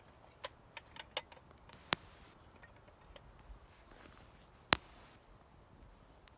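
Wood campfire crackling: scattered sharp pops and clicks, several small ones in the first second and a half and two loud pops about two and nearly five seconds in, each with a short hiss after it.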